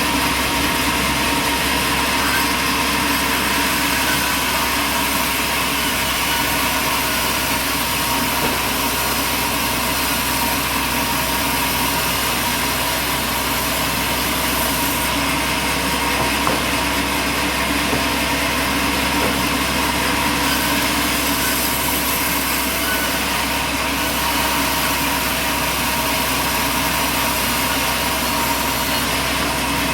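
An engine or large machine running steadily at constant speed, with a dense, unchanging hum.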